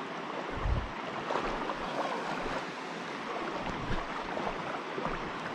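River water rushing and burbling over stones in a steady wash, with a couple of soft low thumps.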